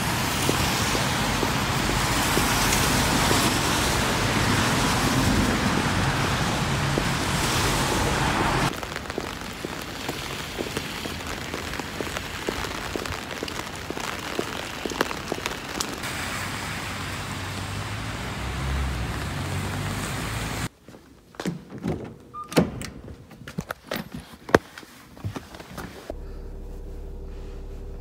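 Outdoor street noise while walking: a loud steady hiss for about nine seconds, then a quieter stretch with small clicks and steps. About twenty seconds in it cuts to the inside of a car, where there are a few sharp knocks and clicks and then a steady low hum.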